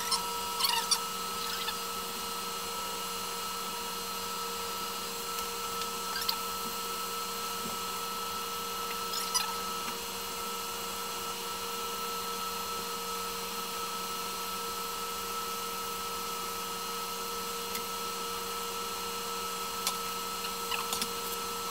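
Electric hair clippers running with a steady buzzing hum while cutting short hair, with a few faint crackles as they pass through the hair.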